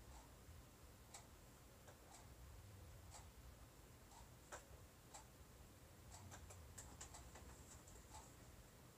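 Near silence: room tone with faint, irregular light clicks, a few closer together about two-thirds of the way in.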